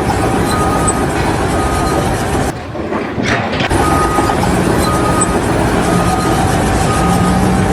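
Heavy machinery running steadily, with a faint beep repeating about once a second. The noise breaks off briefly about two and a half seconds in, then resumes.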